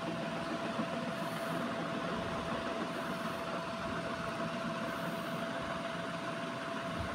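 A steady machine drone with a constant high whine running through it, unchanging throughout.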